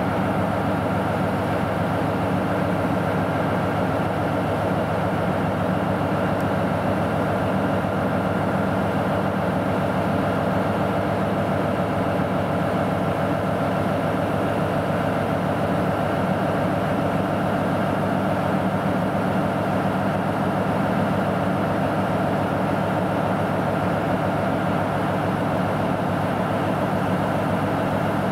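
JR Freight DF200 diesel-electric locomotive idling at a standstill: a steady, even engine hum with no change in speed.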